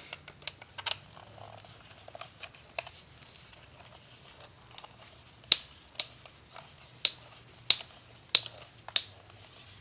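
Sharp clicks and small handling noises as the hose of a portable tire inflator is screwed onto a tire valve, faint at first, then louder clicks about every two-thirds of a second in the second half.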